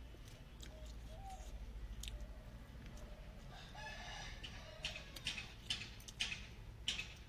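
Chickens clucking and calling, with a longer, fuller call about four seconds in. From about five seconds in, sharp chewing and mouth clicks from someone eating come about twice a second.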